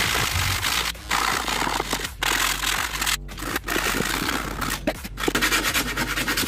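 Plywood panel scraping and rubbing against a small plywood speaker box as it is slid and pressed into place, in several stretches that stop suddenly for a moment between them.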